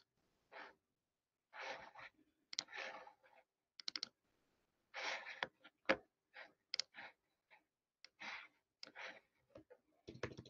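Faint scattered clicks of a computer mouse and keyboard, mixed with short breathy noises, each starting and stopping abruptly.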